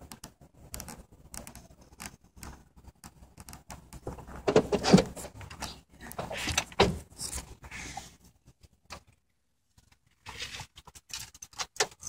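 Irregular clicks and rustles of a handheld camera being moved about inside a vehicle, louder about halfway through, with a second of dropout near the end.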